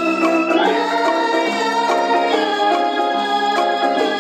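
Background instrumental music: a melody of held, steady notes that change every second or so.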